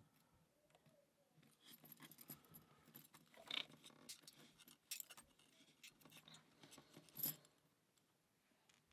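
Faint, scattered small metallic clicks and scrapes of tweezers working the pins and springs out of a cross lock cylinder's chamber, with a few louder clinks about three and a half, five and seven seconds in.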